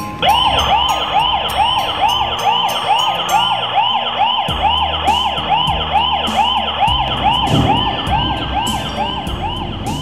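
Electronic alarm siren of a KERUI WM5221 Wi-Fi alarm host, sounding in fast repeated up-and-down sweeps at about two and a half a second. It is set off by the door contact sensor with the system in alarm mode.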